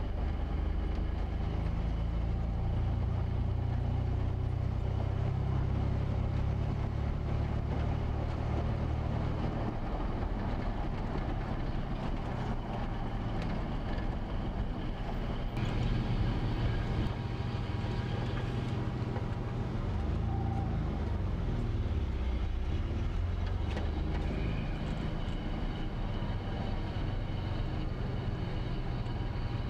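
Car engine and road noise heard from inside a car driving slowly along a town street: a steady low rumble, with the engine note dipping and rising about two-thirds of the way through.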